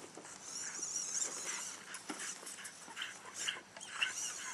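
Dogs giving short, high cries and whines, fairly faint.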